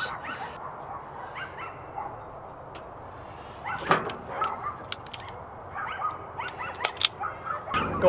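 Light clicks and rustles of hand tools and wire being handled on a truck tailgate, over a steady background hum. One louder short sound, tagged as a dog bark, comes about four seconds in.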